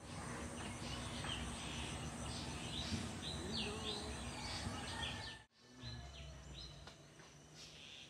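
Birds chirping with short repeated calls over steady outdoor background noise. The sound cuts out briefly about five and a half seconds in and comes back quieter, with more chirps.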